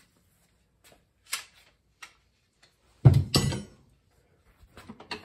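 Scattered metal clicks and clanks as locking pliers grip and work the front pump of a 700R4 automatic transmission to pull it from the case. The loudest is a heavier clank about three seconds in, followed by light ticks near the end.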